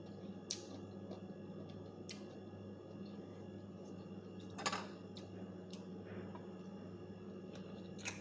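A steady low hum, with four short sharp clicks and crunches from picking sliced sour mango off a ceramic plate and chewing it; the loudest comes about halfway through.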